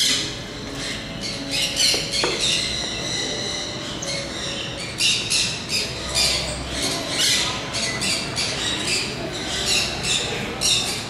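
Other birds squawking and chirping with many short, high calls in quick succession.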